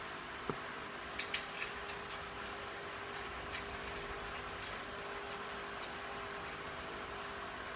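Scattered light clicks and taps of display-fixture parts being handled and fitted together, over a steady background hum.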